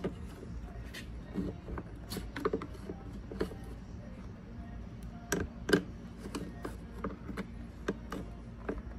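Scattered clicks and knocks of a screwdriver and hands working on a Stihl MS661 chainsaw, prying at a part to get it off. The loudest knocks come a little past halfway.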